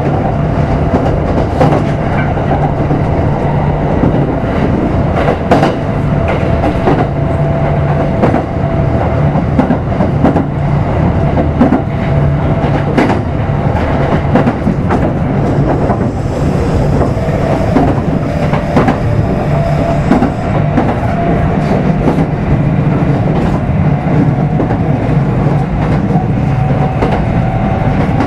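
Running sound of a Kintetsu 5200 series electric train heard aboard motor car Mo 5257 at speed: a steady rumble with wheels clattering over rail joints. A thin steady whine runs through it and rises a little near the end.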